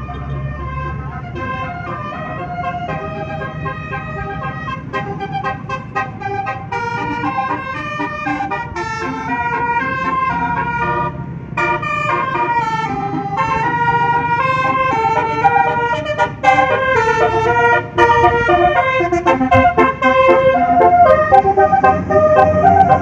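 A tour bus's 12-note 'telolet basuri' musical horn playing a melody, one horn note after another in quick steps up and down, over the low hum of the bus's engine. The horn grows louder from about halfway through.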